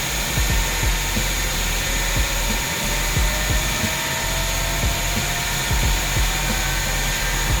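TimberMax NR-68S horizontal band resaw running, its motor and band blade making a steady, even machine noise with a constant high whine.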